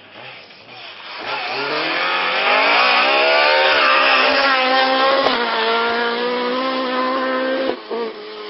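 Mk1 Ford Escort rally car engine at full throttle as the car comes up the stage. Its revs climb and it is loudest about three to four seconds in as it passes. It then holds a steady high note and cuts off suddenly near the end, with another engine note after it.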